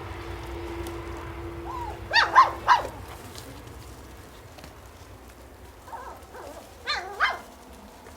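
Puppies barking and yipping: a quick run of three high, short barks about two seconds in, then a few softer yips and two more barks near the end, over a steady low hum.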